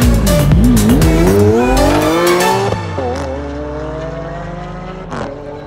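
High-powered race car engine accelerating hard, its pitch climbing, dropping sharply at a gear change near the three-second mark, then climbing again. A short burst of noise about five seconds in.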